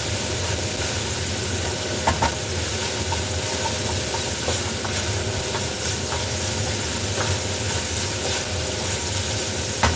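Food sizzling and frying in a nonstick pan over a gas burner as it is stirred, a steady hiss over a low hum. A few light knocks of the spatula against the pan, the strongest about two seconds in and near the end.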